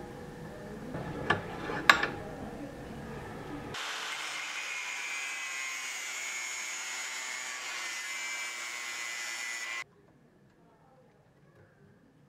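Two sharp clicks, then an angle grinder with a thin cutting disc cutting into the metal collar on an old sword's hilt: a steady, high grinding for about six seconds that cuts off suddenly.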